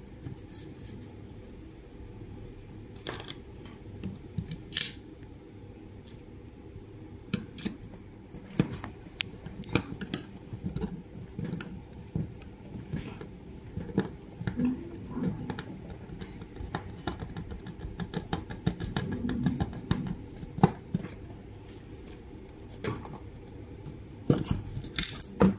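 Handling noise of a hard plastic camera mounting bracket: scattered clicks, taps and light scrapes as it is turned in the hands and an Allen key is worked into one of its holes, over a steady low hum.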